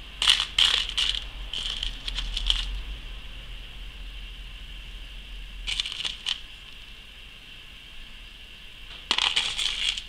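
Loose beads clattering and clinking against each other and the plastic box as fingers rummage through them. It comes in four short spells: two near the start, one about halfway and one near the end.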